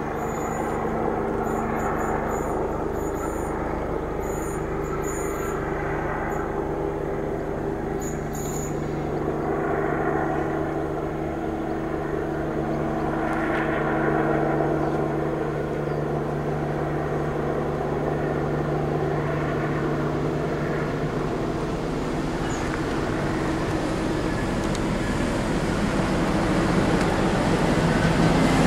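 A DB Class 642 Siemens Desiro diesel multiple unit approaches, its diesel engines giving a steady drone that grows louder as it draws near.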